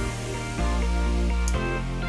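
Background music with a deep bass line coming in about half a second in.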